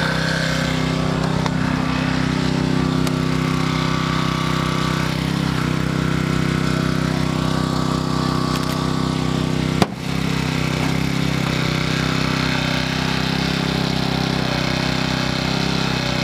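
Small petrol engine of a hydraulic rescue-tool power unit running steadily at a constant speed. A single sharp crack sounds about ten seconds in.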